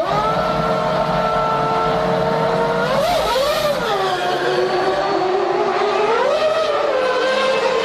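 A 1999 Formula One car's V10 engine held at steady revs for about three seconds, then the revs waver, sag and climb back up near the end.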